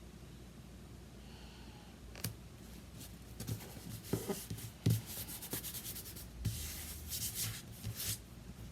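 Hands handling and rubbing paper craft pieces, with scattered light clicks and taps and stretches of scratchy rustling, starting about two seconds in.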